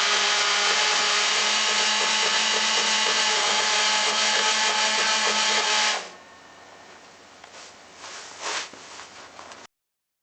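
Chainsaw running steadily at a constant high speed, then cutting off suddenly about six seconds in. A faint rattling noise with a few brief swells follows before the sound stops just before the end.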